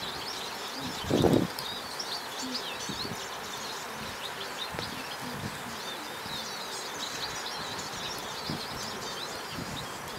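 Small birds chirping and singing continually over steady outdoor background noise, with one dull thump about a second in. Faint low clicks through the rest fit a grey squirrel gnawing a nut close to the microphone.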